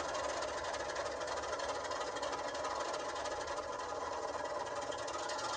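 Diesel engine sound running steadily from the DCC sound decoder of an HO-scale NSW 48 class diesel locomotive model.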